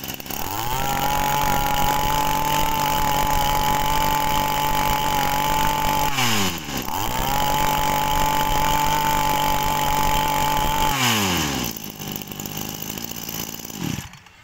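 A small two-stroke Echo brush-cutter engine of about 20 cc revving up and held at high throttle, a run-up test of the machine. It is eased off and revved back up about six seconds in, then drops back to a low idle near the end.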